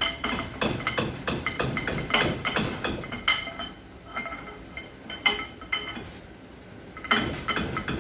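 Metal-on-metal clinking and knocking as the parts of an old cast-iron bench vise are handled and worked. Many quick clinks with a few louder knocks, thinning out in the middle.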